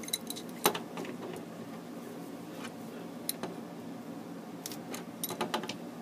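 Scattered light metallic clicks and clinks of a wrench and the brass flare nut on an air-conditioning coil's liquid-line fitting, coming more thickly near the end as the wrench is put on the nut. A faint steady hum runs underneath.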